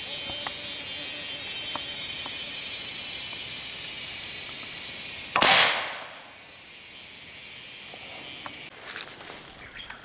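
A single loud, sharp hunting shot about halfway through, fired up into a tree at a bird, ringing off briefly over a steady high hiss of the forest. Near the end, footsteps crunch through dry leaf and bamboo litter.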